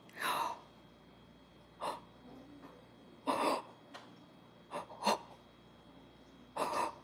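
A young girl making short, breathy pretend-eating mouth noises, about six quick puffs and smacks, as she holds a toy hot dog to her mouth.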